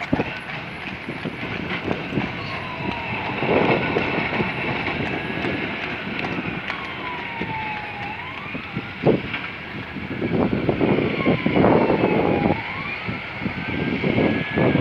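Electric tram running on street track. Its motors whine in gliding tones that fall and then rise again as it slows and picks up speed, over a steady rumble with a few sharp knocks from the wheels going over rail joints and points.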